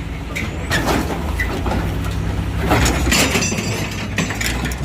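Excavator diesel engine running steadily, with sharp metal cracks and crunches as its hydraulic cutting shear bites into a Mercedes truck cab. The crunches come thickest around three seconds in.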